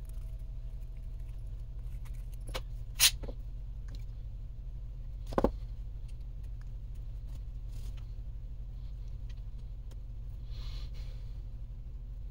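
A few sharp clicks and clinks of small plastic and metal RC-car transmission parts (Traxxas E-Revo 2.0 gearbox case and gears) being handled and fitted together by hand, over a steady low hum. The loudest click comes about three seconds in, and a quick double click about halfway through.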